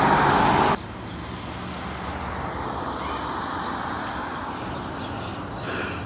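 Steady outdoor road-traffic noise. A louder passage of background music cuts off suddenly under a second in.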